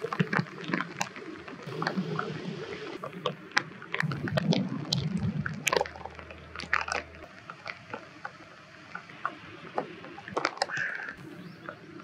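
Water sloshing and splashing, with many short sharp clicks scattered through; the low water noise drops away about halfway.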